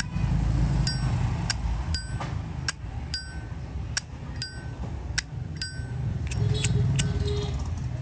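Zippo lighter's hinged brass lid being flicked open and snapped shut over and over. A dozen or so sharp metallic clicks, each with a short bright ringing ping, come every half second to a second. It is the lid sound that the seller calls good on this unrepaired 2008 lighter.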